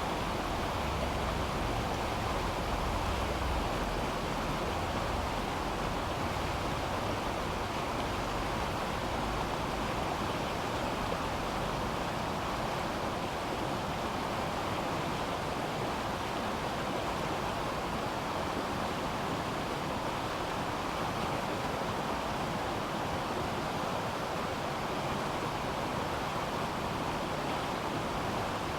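River water rushing steadily, an even, unbroken hiss of flowing water. A low rumble underneath fades over the first several seconds.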